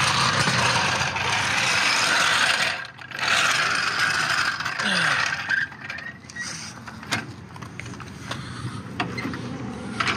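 Steel floor jack rolled over concrete with a rattling scrape in two pushes, then a few clicks and knocks as it is set under the car's nose and its handle is worked.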